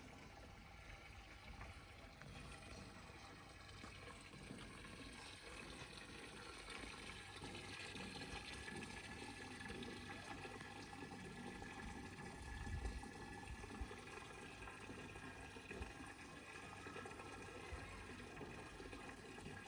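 Water running steadily and faintly, with a couple of light knocks about two-thirds of the way through.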